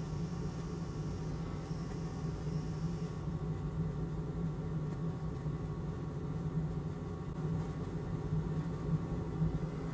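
Steady low machine hum from running workbench equipment, with a faint high hiss that drops away about three seconds in.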